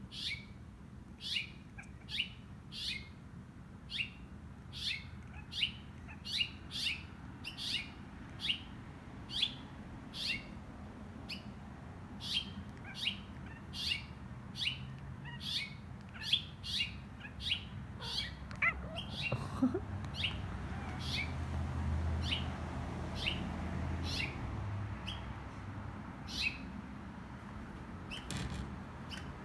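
A small songbird, which the owner takes for a red finch, giving short, sharp, falling chirps over and over, about one or two a second.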